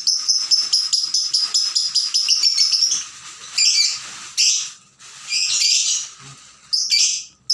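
Lovebird calling excitedly: a fast run of sharp, high chirps, about six a second, for about three seconds, then harsher, longer chattering bursts.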